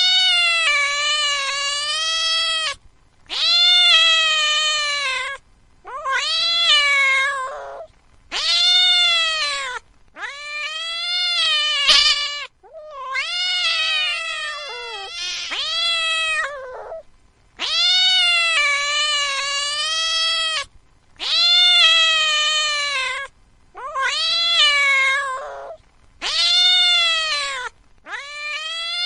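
A domestic cat yowling: about eleven long, drawn-out calls in a row, each two to four seconds with a slightly wavering pitch, separated by brief pauses.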